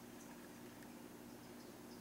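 Near silence: a faint steady hum and hiss, with a few faint short high chirps.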